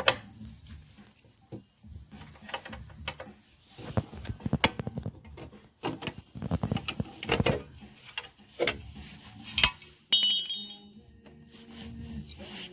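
Irregular metal clinks and knocks as the access hatch on a metal street lamp post is worked loose and opened, with a brief high ringing tone about ten seconds in.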